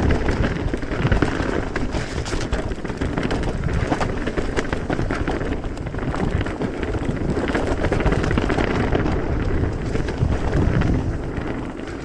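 Mountain bike ridden along a dirt trail: wind rushing over the microphone, with tyre noise and the frequent knocks and rattles of the bike over the ground.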